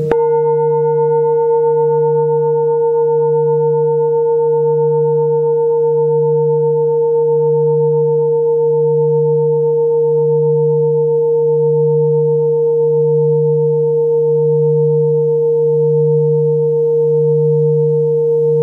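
Tibetan singing bowls ringing on after a mallet strike at the very start: a deep hum that wobbles slowly, about once a second, under steady higher ringing tones. The highest overtones die away within the first few seconds while the lower tones hold.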